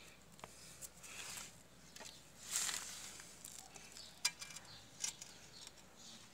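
Faint handling sounds: a few sharp clicks and soft scrapes, with a brief rustle about two and a half seconds in, as a ceramic tile buttered with mortar is handled and set against the wall.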